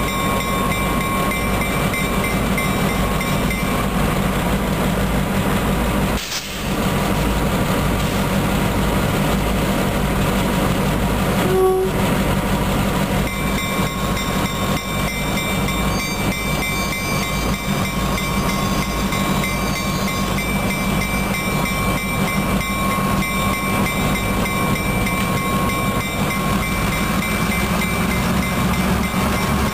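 LIRR MP15AC diesel switcher locomotives rolling slowly past at close range, their EMD diesel engines running with a steady loud drone.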